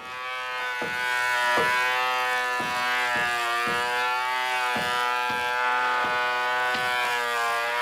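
Electric power tool motor running steadily at a whine, its pitch wavering slightly with regular knocks about every half second to second as it works wood.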